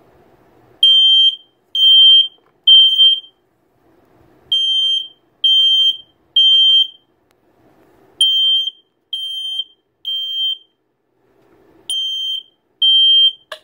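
Gentex 9123 smoke alarm sounding on test in the temporal-three pattern: three loud, high-pitched half-second beeps, a pause, then three more, four rounds in all. A sharp click near the end.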